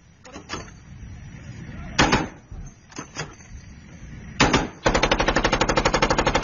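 Gunfire: a few separate shots in the first four seconds, then a rapid automatic burst of about two seconds near the end.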